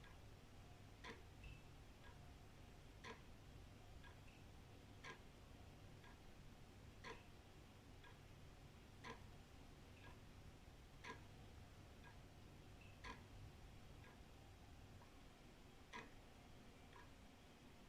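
Old wall clock ticking at about one tick a second, with louder and softer strokes alternating, over a faint low rumble.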